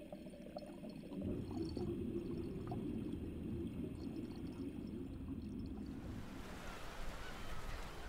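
Water pouring and burbling in eel-rearing tanks, a low, even murmur. About six seconds in it changes to a brighter, steady hiss of running water.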